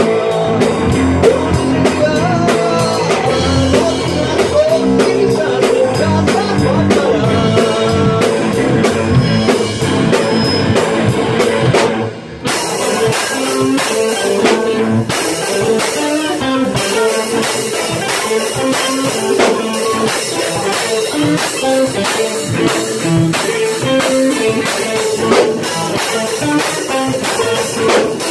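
A rock band playing together in rehearsal: electric guitars over a drum kit. The playing breaks off briefly about twelve seconds in and carries on.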